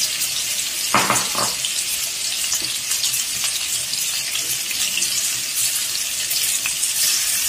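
Marinated chicken pieces sizzling and crackling in hot shallow oil in a pan, a steady hiss with fine pops throughout and a brief louder burst about a second in.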